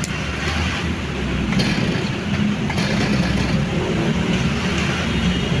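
An engine running steadily, with a few short knocks over it.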